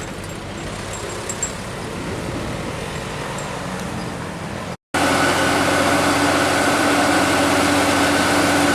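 Road traffic rumble, then after a brief cut about five seconds in, a louder steady drone of a diesel dump truck engine running.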